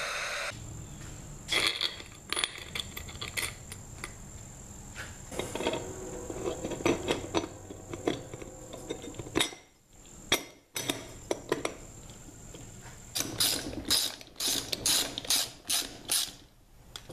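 Hand ratchet wrench clicking in quick runs with metal clinks, as nuts are run down while mounting a mini bike's rear wheel.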